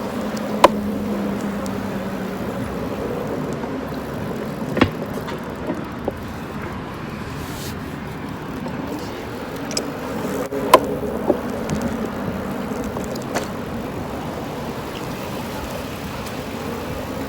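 Steady rush of wind and road noise while riding an electric bike in traffic, with a low hum that fades after about two seconds. A few sharp knocks break through, the loudest about half a second in and about eleven seconds in.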